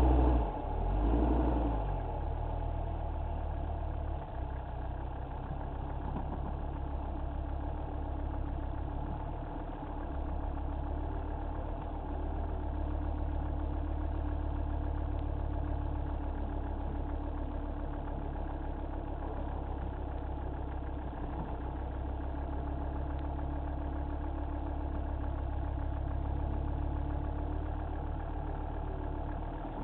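Mercedes G-wagen engine running steadily at low revs while the truck crawls over rock. It is louder at the very start and settles to an even hum within about two seconds.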